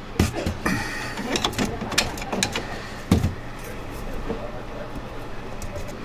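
Scattered knocks and clicks of disassembled sink drain pipe pieces being handled, with a louder knock about three seconds in.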